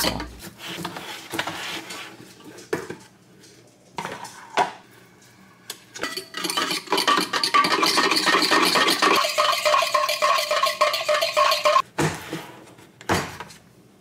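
Dishes, pots and cutlery clinking and clattering in irregular knocks, busier and louder in the middle stretch.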